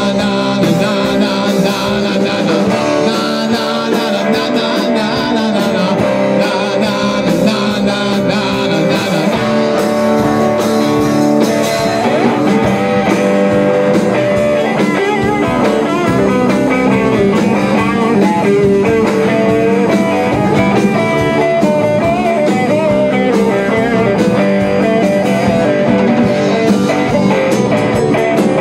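A rock band playing an instrumental passage: an electric guitar over bass guitar and a Tama drum kit, steady and loud throughout.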